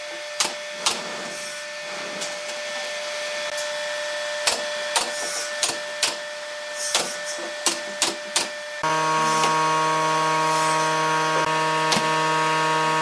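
A workshop power tool running with a steady hum, with sharp knocks and taps throughout. About nine seconds in, the hum switches abruptly to a lower, stronger tone.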